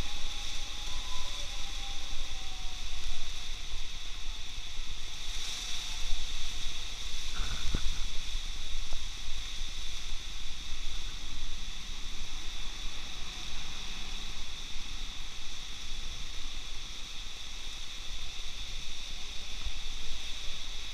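Steady hiss of heavy typhoon rain and wind, with wind rumbling on the microphone and cars swishing past on the flooded road.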